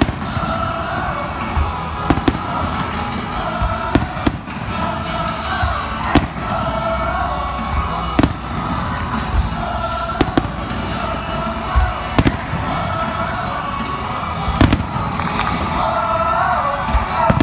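Aerial fireworks shells bursting one at a time with sharp bangs, about one every two seconds. Music with a wavering melody plays continuously beneath them.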